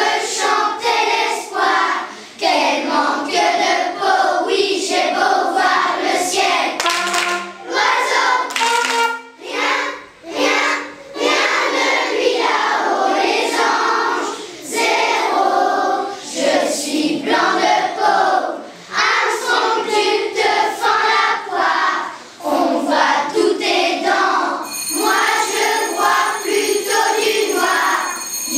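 A class of primary-school children singing a song together as a choir, phrase after phrase with short breaks for breath.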